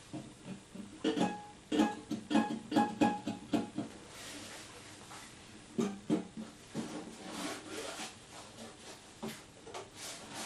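Shamisen strings plucked unevenly by a beginner trying the instrument out: a quick run of single notes over the first few seconds, then a few scattered plucks.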